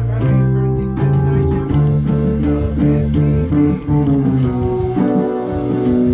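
A band playing: an electric bass guitar plucked with the fingers, changing notes every second or so, under sustained guitar chords.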